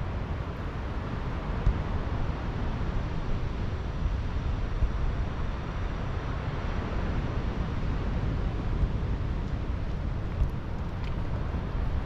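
Wind buffeting the microphone: a steady low rumble with an even hiss above it and no distinct events.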